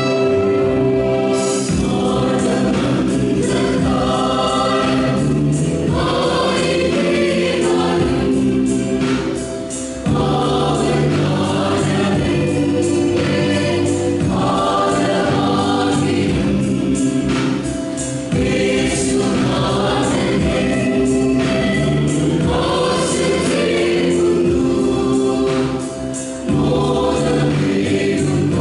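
Mixed choir of men and women singing a Christian song in harmony, with short breaks between phrases about every eight seconds.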